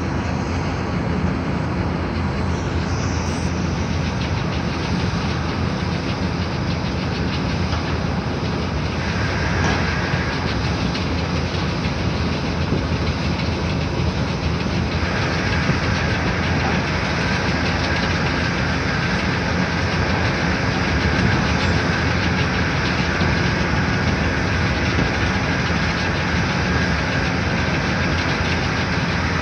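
Steady rumble of heavy construction machinery and road traffic, with diesel engines running continuously. A faint high whine joins about halfway through.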